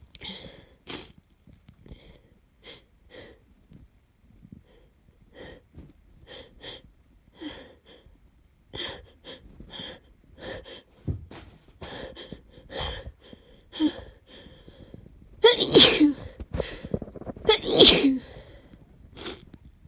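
Sneezing fit of a person with a snotty head cold: a run of short breathy bursts, then two loud sneezes about two seconds apart near the end.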